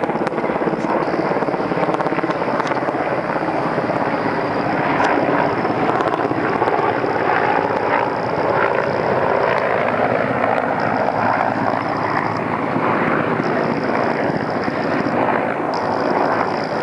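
Helicopter flying overhead: a loud, steady rotor chop, with the pitch of the engine and rotor noise sliding slowly in the middle of the pass.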